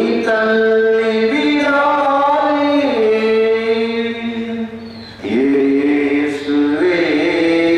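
Liturgical chant sung during Mass, in long held notes that step up and down in pitch, with a brief break about five seconds in.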